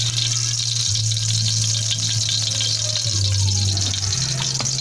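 Cooking oil sizzling and crackling faintly as it heats in a wok, with a low hum underneath that shifts in pitch a few times.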